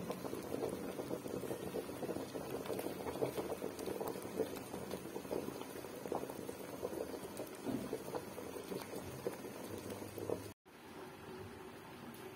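A large pot of water at a hard rolling boil, cooking banana-leaf-wrapped lontong rice cakes, with a dense, irregular bubbling and popping. It cuts off abruptly about ten and a half seconds in, and a quieter steady hum follows.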